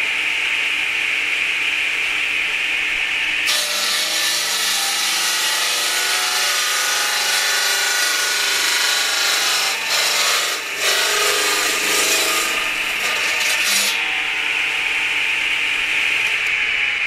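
Electric brick-cutting table saw with a large circular blade, running at speed with a steady whine. About three and a half seconds in, the blade starts cutting through a hollow clay brick, adding a loud gritty grinding for about ten seconds, then the blade runs free again.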